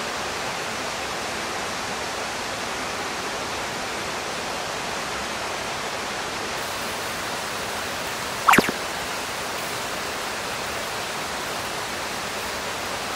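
Steady hiss of food sizzling on a charcoal grill, with one sharp pop about eight and a half seconds in.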